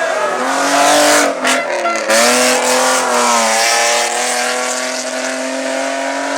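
Race car engine at full throttle, revving up and shifting up quickly twice in quick succession about a second and two seconds in, then pulling hard in the next gear and getting slightly quieter near the end.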